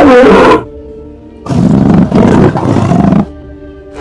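Cheetah sound effect: a short loud snarl at the start, then a rough, pulsing growl for about two seconds, over soft background music.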